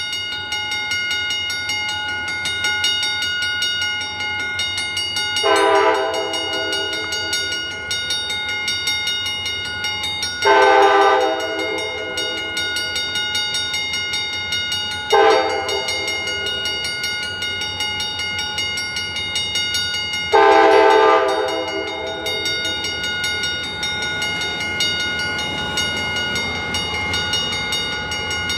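Air horn of a freight train led by an EMD SD40-2 locomotive, sounding four blasts several seconds apart: three longer ones with a short third blast, like the long-long-short-long crossing signal. A steady diesel rumble runs underneath.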